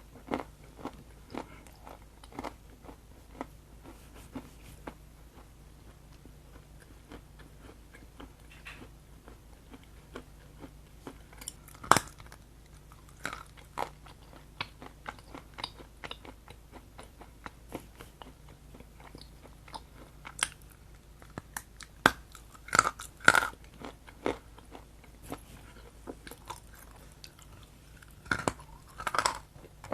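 A person biting and chewing something crunchy close to the microphone, with many small crackling chews and a few louder crunching bites, clustered near the end.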